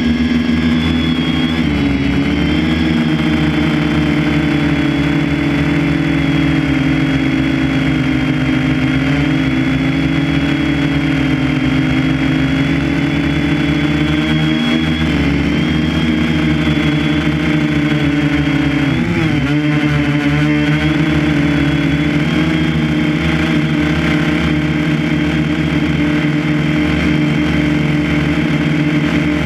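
A motor running steadily, its pitch wavering slightly and dipping briefly about two-thirds of the way through.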